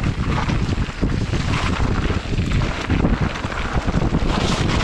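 Wind buffeting the microphone of a GoPro on a mountain bike descending at speed, with the rattle and knocks of the bike and tyres over rough trail underneath.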